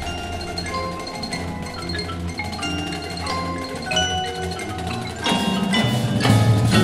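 Winter drumline playing: marimbas and vibraphones ring out a soft passage of pitched mallet notes, then about five seconds in the music gets louder as heavy low drum hits join.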